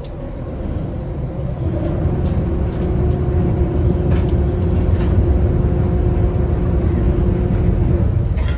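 Ferry's engines and hull droning inside the passenger cabin while under way: a low rumble that builds over the first few seconds and then holds steady, with a faint steady hum over it.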